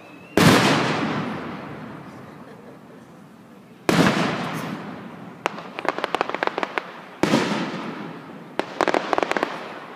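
Aerial firework shells bursting: three loud booms about three and a half seconds apart, each trailing off in a long echoing rumble. After the second and third booms come bursts of rapid crackling pops.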